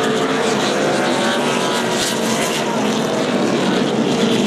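NASCAR Sprint Cup car's V8 engine revving hard through a victory burnout and doughnuts, its pitch rising and falling as the rear tyres spin.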